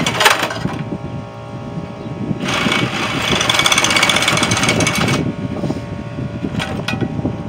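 Cordless power tool running hard in two long bursts with a fast, even chatter, then a couple of brief blips near the end as it gives out; its battery is going dead.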